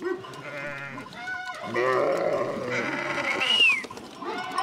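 Sheep bleating, several quavering calls overlapping from the flock, with a short high rising-and-falling call about three and a half seconds in.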